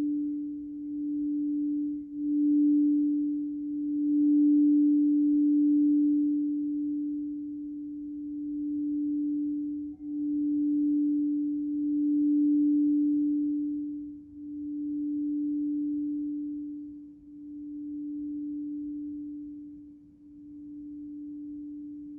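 Crystal singing bowl sounding one steady, pure tone that swells and eases in loudness every few seconds. A second, higher bowl tone fades out in the first couple of seconds.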